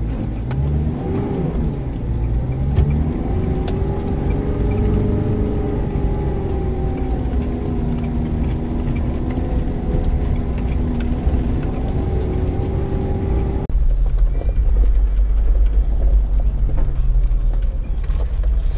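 Off-road 4x4's engine running while driving a dirt track, its pitch rising and falling with the throttle. About fourteen seconds in, the sound cuts abruptly to a louder, deeper engine rumble.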